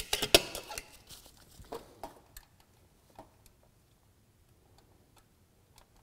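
Metal hand tools clicking and clinking during a valve lash adjustment on a Honda 3.5-litre V6: a quick cluster of sharp clicks at the start, then scattered fainter ticks that thin out after about three seconds.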